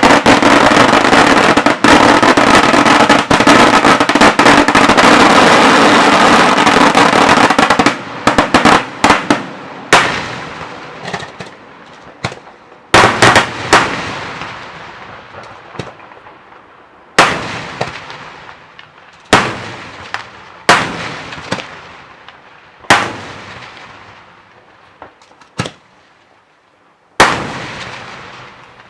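Daytime fireworks (fuochi diurni) going off: a dense, continuous barrage of bangs for about eight seconds, then single loud bangs with echoing tails every second or two, thinning out toward the end.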